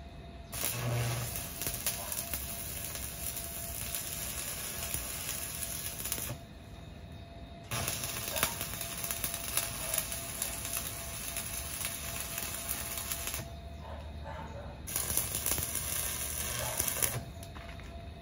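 Stick (arc) welding: the electrode arc crackles and sizzles in three runs, with short breaks about six and thirteen seconds in as the arc is broken and struck again.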